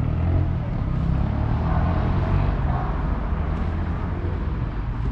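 A motor vehicle driving past on the street: a steady low rumble.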